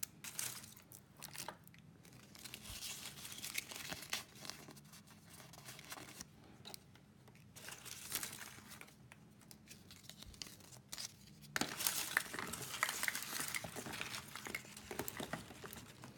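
Thin foil and plastic wrappers crinkling and tearing as surprise eggs are unwrapped by hand, in irregular scattered crackles. The crinkling grows louder and busier about two-thirds of the way through.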